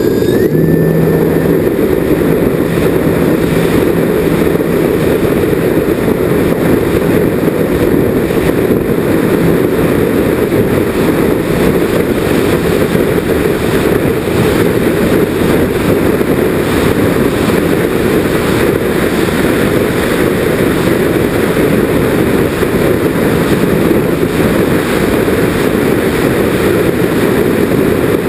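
Twin-motor RC model airplane's motors and propellers running steadily, heard from a camera mounted on the plane, buried in a dense rushing rumble of airflow and vibration. A brief rising whine at the start as the motors spool up for the takeoff run, then a steady drone through the climb-out.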